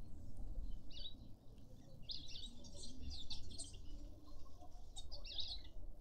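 Small songbirds chirping in short, high calls, in three bouts: about a second in, a denser run through the middle, and again near the end.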